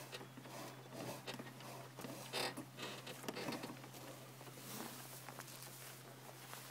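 Scattered light knocks and rustles as a black cow rubs its head against a John Deere Gator's cargo bed, rocking the vehicle, with a faint steady low hum underneath.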